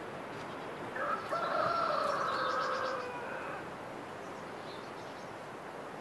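A rooster crowing once, one long call of about two and a half seconds that starts about a second in and falls away at the end, with small birds chirping faintly.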